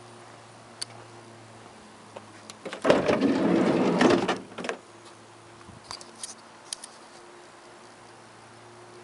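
Rear sliding side door of a Citroën Berlingo van being unlatched and slid open along its runner: a loud rolling scrape lasting about a second and a half, then a few light clicks.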